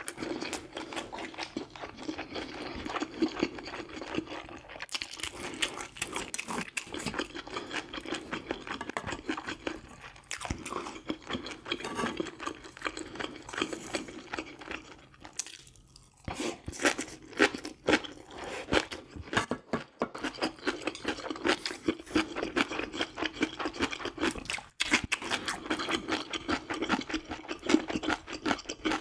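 Close-miked eating: a person chewing and crunching food in quick, irregular bites, with mouth sounds throughout and a short lull about sixteen seconds in.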